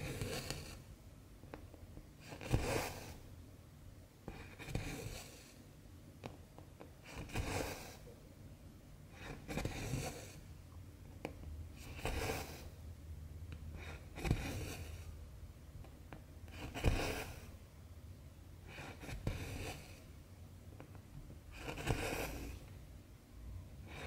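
Cross-stitch needle and cotton embroidery thread being worked through 11-count stamped fabric, about one stitch every two and a half seconds. Each stitch is a sharp tick of the needle piercing the cloth, followed by a swish of thread drawn through.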